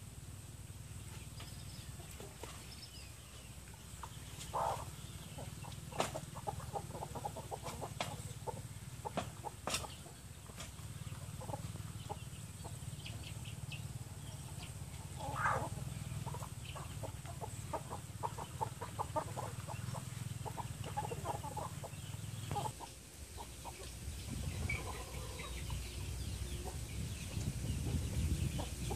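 Chickens clucking as they forage, with runs of quick clucks and two louder calls, about four and fifteen seconds in, over a low steady rumble.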